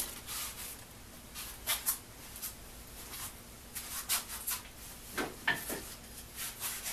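Faint handling noise: scattered small clicks and taps, with a couple of short scraping slides about five seconds in.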